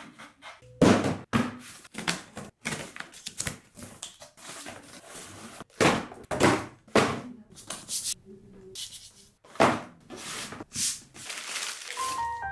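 Cardboard shoebox being handled and opened, with tissue paper rustling as it is folded back from the sneaker inside: a string of brief, sharp scrapes and rustles.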